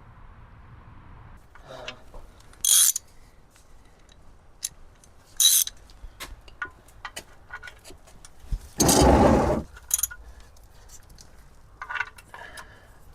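Metal hand tools clinking and jingling as a socket and ratchet are worked onto an oil drain plug, with scattered clicks and short scrapes and one louder, longer scrape about nine seconds in.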